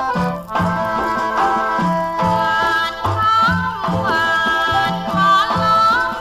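A recorded Thai song playing, with a steady repeating bass beat under a lead melody that slides between notes from about three seconds in.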